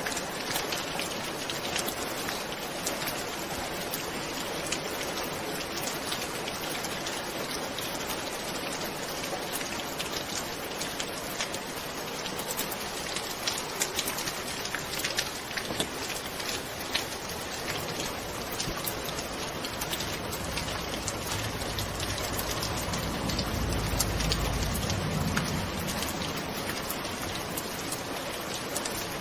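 Steady rain with many sharp individual drop impacts. A low rumble of distant thunder swells and fades about two-thirds of the way through.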